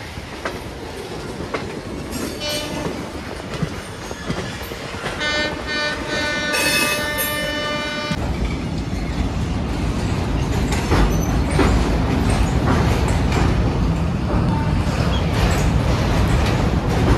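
Indian Railways passenger train running: a train horn gives a short faint toot about two seconds in, then a long blast from about five to eight seconds that cuts off sharply. After it the wheels' rumble turns louder and deeper, with clacking over the rail joints, as the train crosses a bridge.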